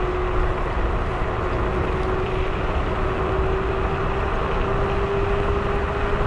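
Electric scooter's motor whining steadily while it picks up speed downhill, the whine rising slowly in pitch, over a constant rush of wind and road noise.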